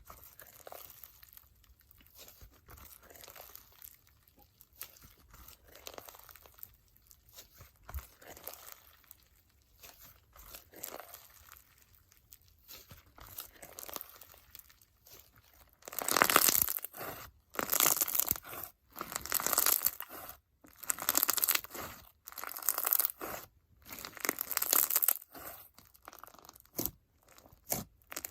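Hand-played icee-jelly crunch slime full of foam beads and bingsu beads crackling as it is squeezed and pressed. The handling is soft at first, then from about halfway comes a run of loud crunching squishes about once a second.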